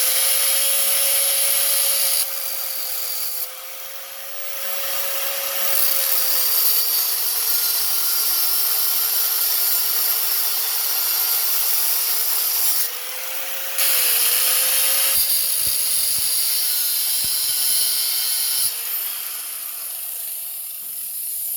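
High-speed power tool cutting a groove across the steel inner race of a chainsaw crankshaft bearing: a steady high whine with grinding hiss, its pitch and loudness dipping briefly a few times as the cut bites, then stopping at the end.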